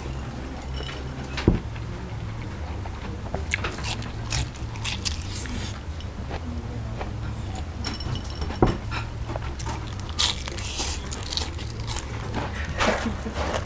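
Crunching bites into breaded deep-fried shrimp and chewing, with short crackly crunches scattered throughout. There are two sharp thumps, one about a second and a half in and one a little past the middle.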